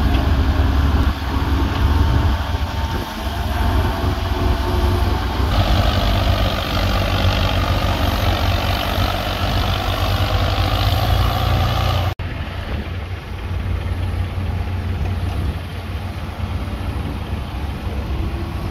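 Diesel engines of a farm tractor and an excavator running steadily, the tractor pulling a trolley heavily loaded with sand. About two-thirds of the way in the sound drops abruptly and the machinery becomes quieter and more distant.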